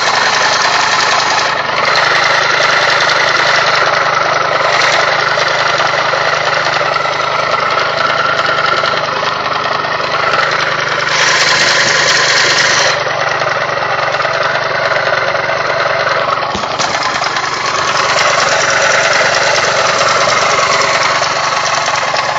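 Racer Lupus motorcycle engine running steadily with a knock, a tractor-like sound.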